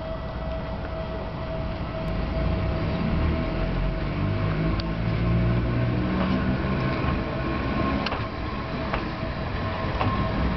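Gakunan Railway electric locomotive No. 501 rolling slowly past at close range: a low rumble from its motors and running gear that grows louder as it nears, with a few sharp clicks.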